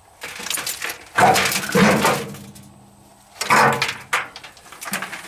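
Hands rummaging through shredded wet clothing and broken plastic and metal fragments in a bullet-riddled clothes dryer drum: rustling and clattering of debris, in four bursts.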